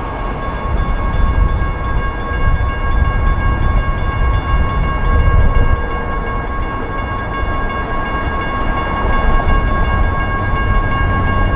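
Railroad crossing's GS Type 1 electronic bells ringing as a steady high tone, signalling that the crossing is active with its gates down. A heavy low rumble runs underneath.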